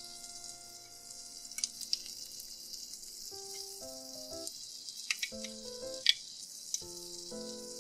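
Hot oil sizzling steadily as a miniature corn dog deep-fries in a tiny pan, with sharp crackling pops now and then. Light background music plays from about three seconds in.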